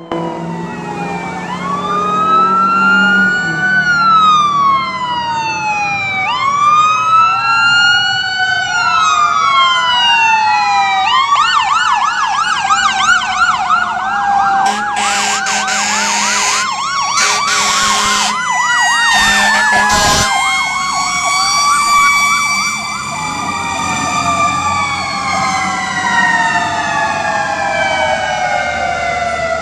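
Several emergency-vehicle sirens on responding fire apparatus wail over one another, rising and falling. A fast yelp runs through the middle, and a few short, loud horn blasts cut in between about 15 and 20 seconds. A low engine hum sits under the opening seconds.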